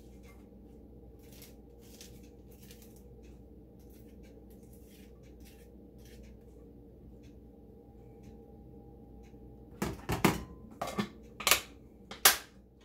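Faint rustling of washed lettuce being tipped out of a plastic salad spinner basket into a glass container, then, about ten seconds in, a quick run of sharp clacks and knocks as the plastic spinner and glass kitchenware are set down and handled.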